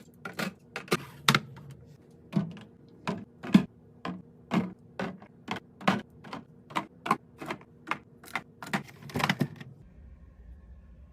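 Irregular sharp clicks and light knocks of hard plastic and glass items being handled and set down while a fridge is restocked, about two or three a second, stopping shortly before the end.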